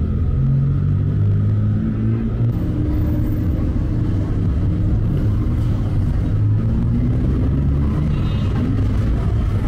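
A motor vehicle's engine running close by on the street, a steady low hum.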